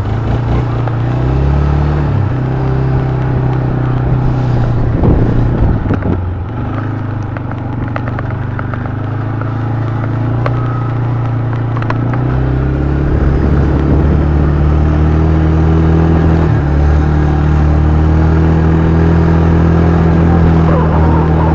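A motor vehicle's engine running steadily while driven over rough ground, with scattered clattering knocks in the middle. About thirteen seconds in the engine picks up and runs louder and higher, then holds.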